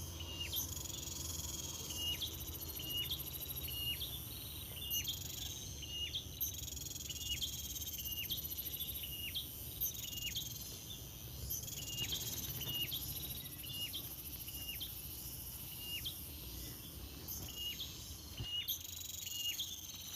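Short, sharp bird chirps repeated roughly once a second over a steady, high-pitched chorus of insects.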